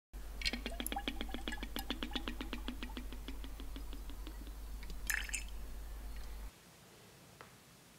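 Liquid poured from a bottle into a glass tumbler, glugging in a quick even rhythm that fades over about four seconds. A single glass clink follows just after five seconds, over a low hum that cuts off about six and a half seconds in.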